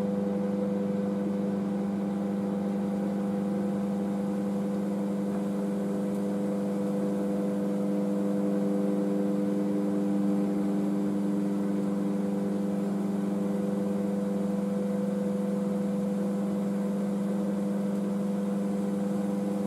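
Microwave oven running, heating a sealed bag of frozen fried gyoza: a steady, even hum with no change in pitch or level.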